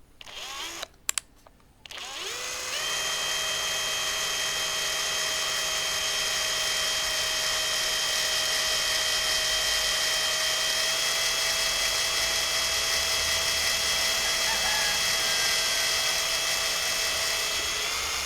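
Power drill in first gear boring a small pilot hole through a flat metal pipe strap. After a few clicks, the motor spins up about two seconds in and runs at a steady whine. The pitch steps up slightly about halfway, and the drill stops at the very end. The bit goes through the metal smoothly at low speed.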